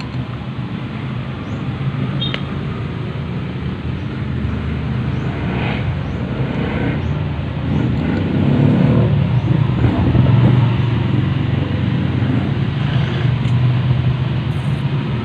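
Steady low hum of a motor vehicle engine running, growing louder about eight seconds in, with a few light clicks.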